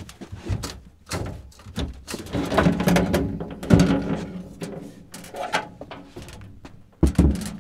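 Front cover panel of a Generac PWRcell battery cabinet being unlatched and lifted off: irregular knocks, clacks and scrapes of the panel against the cabinet frame, with a heavy thump about seven seconds in.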